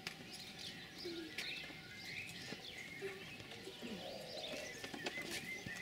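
Small birds chirping faintly outdoors: short, quick, gliding high notes in irregular bursts, with a few faint clicks.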